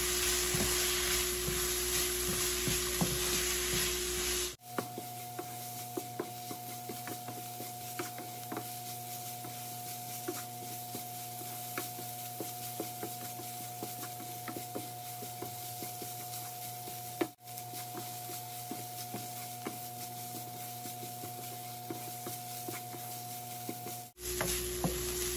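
Bacon, carrots and onion sizzling in a frying pan while a wooden spatula stirs and scrapes them, with many small scraping ticks and a steady hum underneath. The sound cuts abruptly to a thinner-sounding stretch about four and a half seconds in and back near the end.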